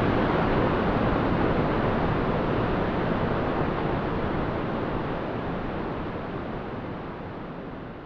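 Large waterfall pouring, a dense, even rush that is almost white noise, slowly fading out.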